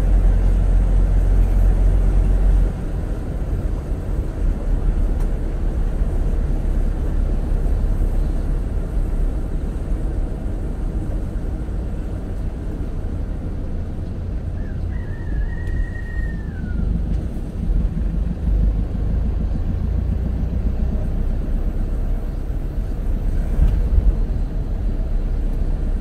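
Car driving along a road, its engine and tyre rumble heard from inside the cabin. The rumble eases a little a few seconds in, and a short high whistle sounds once about midway.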